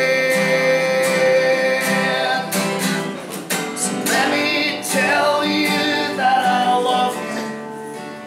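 A man singing to his own strummed acoustic guitar. He holds one long note at the start and takes up the vocal line again about halfway through.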